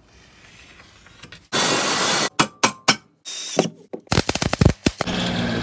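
A quick succession of workshop tool sounds: about a second of steady loud noise, three sharp knocks in quick succession, a rapid run of clicks, then another stretch of steady tool noise.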